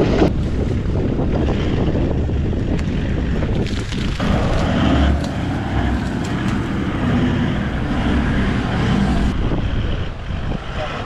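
Toyota Land Cruiser 4x4 engine running at low speed as it crawls along a muddy trail, with wind buffeting the microphone. The sound changes about nine seconds in.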